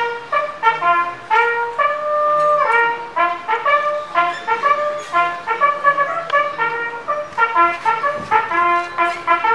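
A brass horn, trumpet or bugle, playing a quick ceremonial call of short notes one at a time, with one longer held note about two seconds in.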